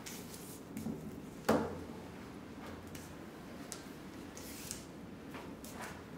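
Pink tape being peeled off the edge of a wooden board, with light rustles and brief tearing rasps. There is a single sharp knock about a second and a half in.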